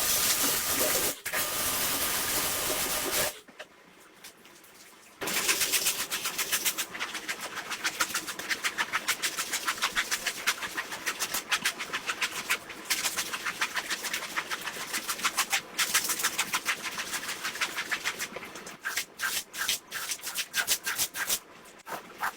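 Carpet cleaning work: a steady hiss for about three seconds, then after a short pause a long run of rapid, repeated strokes on the carpet, several a second, thinning to scattered scrapes near the end.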